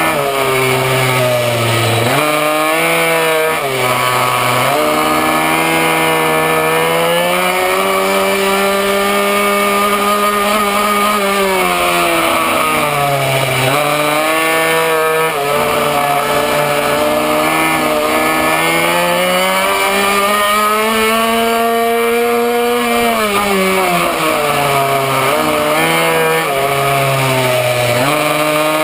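Minimoto's small two-stroke engine at racing speed, heard from on board. Its high-pitched note climbs and holds at high revs along the straights, then falls sharply as the rider brakes for the corners, several times over.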